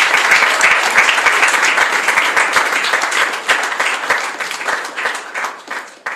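Audience applauding, a dense clapping that thins out and dies away near the end.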